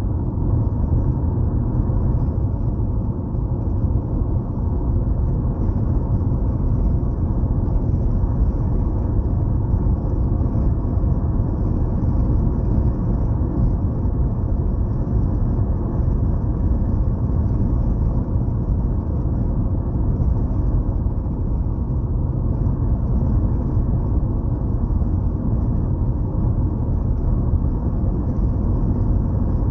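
Steady low road and engine rumble inside a moving car's cabin, even throughout.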